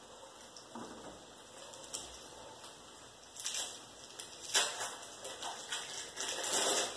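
Omelette sizzling softly in a frying pan, with irregular bursts of rustling and crackling from ingredients being handled and added by hand, loudest near the middle and end.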